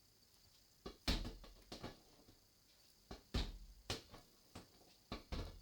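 A football being kicked and knocking against a washing machine: a string of dull thumps, the loudest about a second in and again around three and a half seconds in, with softer knocks between.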